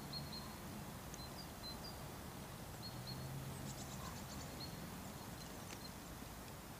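Quiet waterside ambience with a faint low hum, a few short high bird chirps and a quick run of high clicking notes about two-thirds of the way through.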